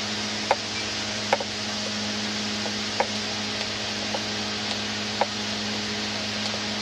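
Pet bird eating: about five short, sharp clicks at irregular intervals from its beak working at its food, over a steady fan-like hum.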